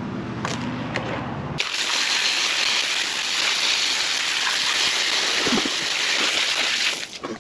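Garden hose spraying water onto cleaned blue crabs on a concrete driveway: a loud, even hissing splash that starts abruptly about a second and a half in and stops just before the end. Before it, a steady low hum.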